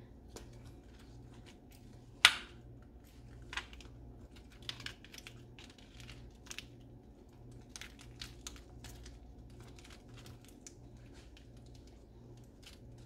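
Crisp iceberg lettuce leaves crinkling and crackling in short scattered bursts as they are handled and folded around a filling, with one sharp knock about two seconds in.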